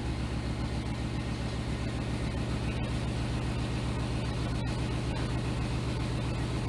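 Hemi V8 of a Jeep Grand Cherokee idling steadily with its exhaust system cut off, running open and kind of loud with an even, pulsing low rumble, just after start-up.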